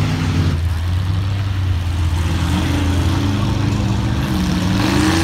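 Off-road mud truck engine running with a deep, steady rumble; from about halfway in, a higher engine note rises and falls as it is throttled.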